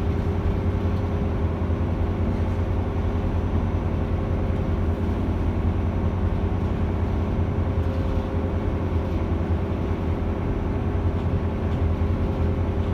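Cruise ship's engine running steadily underway, a constant low droning hum with a steady higher tone above it.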